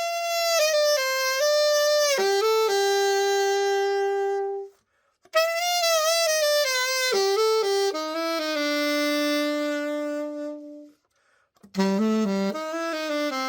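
Yamaha YAS-62 alto saxophone, just given a full overhaul, played solo: three short melodic phrases, each ending on a long held note, with brief pauses between them.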